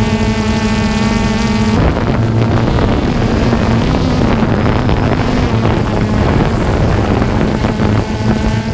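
A radio-controlled model's small electric motor gives a steady whine. About two seconds in it turns into a rough, wavering rush with wind on the microphone, and the steady whine returns near the end.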